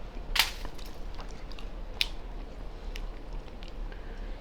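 Crab leg shells being cracked and picked apart by hand: a loud crackling crack about half a second in, a sharp snap about two seconds in, and faint small clicks of shell between them.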